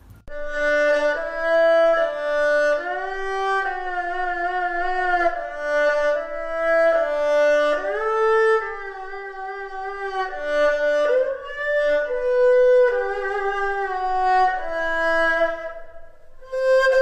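Background music: a slow violin melody of held notes with vibrato, changing pitch about once a second.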